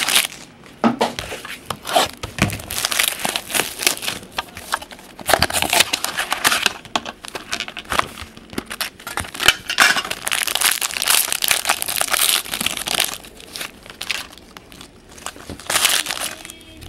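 Foil wrapper of a 2008 Upper Deck Sweet Spot baseball card pack being torn open and crinkled in the hands, an irregular crackling that is loudest around the middle.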